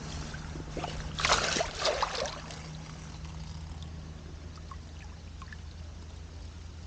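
Lake water splashing as a fish sling holding a fish is dipped into the shallows, a short burst of about a second, followed by light dripping and lapping.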